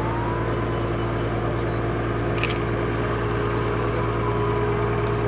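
Steady low hum with an even hiss, and a single click about two and a half seconds in.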